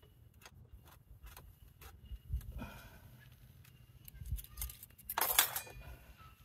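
Scattered light clicks and clinks of small objects being handled, with a couple of low thumps and a louder half-second burst of noise about five seconds in.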